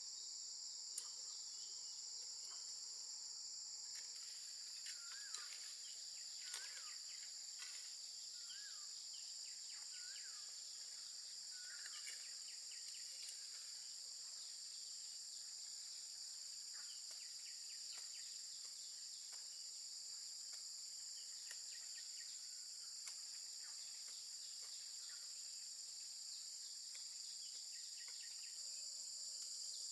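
Steady, high-pitched insect chorus, typical of crickets, running throughout. A bird gives a run of short rising-and-falling calls between about five and twelve seconds in, and faint scattered clicks come and go.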